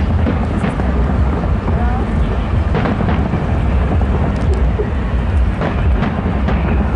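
Fireworks display: a continuous deep rumble of shell bursts, with sharp cracks now and then.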